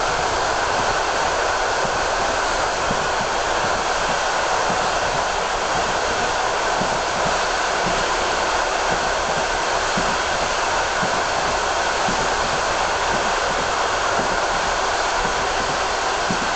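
Passenger train running at speed on the Trans-Siberian railway, heard from inside the carriage: a steady rushing noise of wheels on rails and air streaming past, with no clear rhythm of rail-joint clicks.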